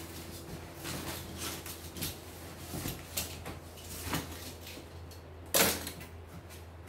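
Cardboard box and plastic packaging handled and rustled during unpacking: scattered short rustles and knocks, with one louder sharp rustle about five and a half seconds in. A steady low hum runs underneath.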